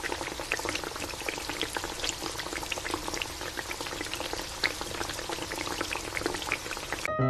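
Surf washing on a sandy beach: a steady fizzing, crackling hiss of foam and spray that cuts off suddenly near the end.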